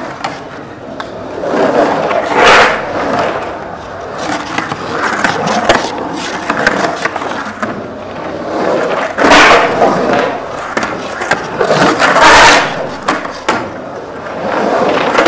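Skateboard wheels rolling and carving across the concrete of an empty swimming pool, a continuous rumble with three louder surges as the board runs up and across the walls.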